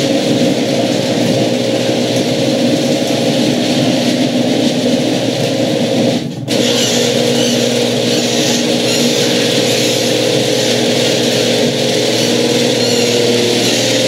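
Genie screw-drive garage door opener running, raising the sectional door for about six seconds, stopping briefly, then running again as it lowers it: a steady motor drone with the door's own running noise. The owner traces that noise to the door's rollers rather than the freshly lubed hinges.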